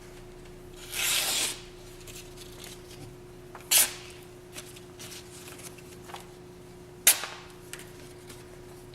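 A kitchen knife ripping through a sheet of paper in a paper-cutting sharpness test: a half-second rasp about a second in, then sharp snaps of paper at intervals. The ripping rather than slicing shows the edge is not yet keen.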